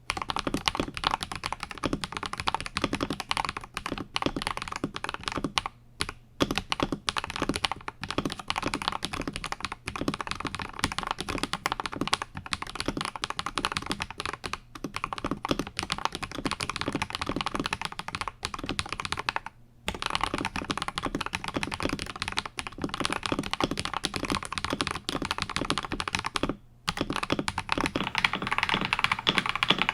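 Continuous fast typing on an Akko 5075S mechanical keyboard with Akko Radiant Red linear switches lubed with Krytox 205g0, on a polycarbonate plate, a dense stream of key clacks. It breaks off briefly three times and grows a little louder near the end.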